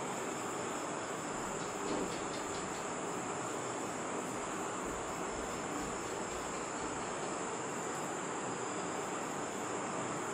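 A steady, high-pitched insect trill of the cricket kind runs on without a break, over a constant background hiss.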